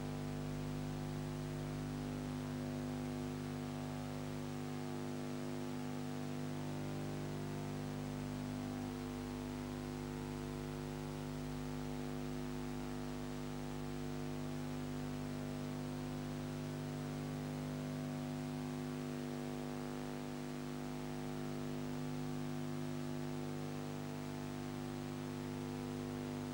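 Steady electrical mains hum, a buzz of several even tones, with hiss behind it and no other sound.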